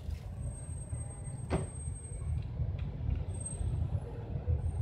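Low rumbling handling noise from an HDD caddy being worked on by hand, with a single sharp click about one and a half seconds in.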